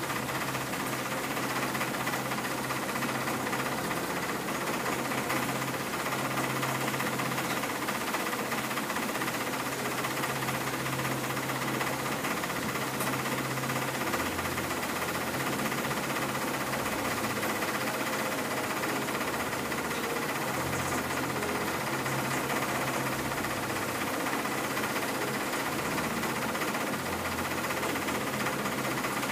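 A tour barge's motor running steadily under way: a low hum that wavers slightly in pitch, under a steady hiss.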